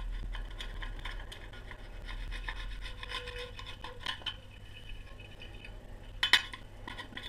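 Hand work on a split-rim alloy wheel: rubbing and scraping with light scattered ticks, and one sharp knock about six seconds in.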